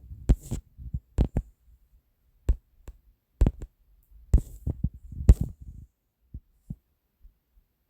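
About a dozen short, sharp clicks and dull thumps at uneven intervals, bunched in the first five and a half seconds and sparser after that.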